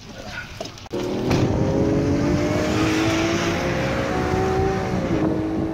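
Renault Clio hatchback's engine pulling away under acceleration. It comes in suddenly about a second in and runs loud and steady.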